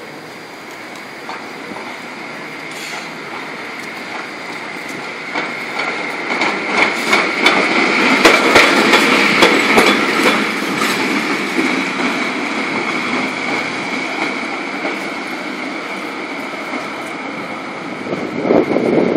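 Restored PCC streetcar rolling past on the track, building to a peak about eight to ten seconds in and then easing off, with rapid clicking of the wheels on the rails and a steady high whine.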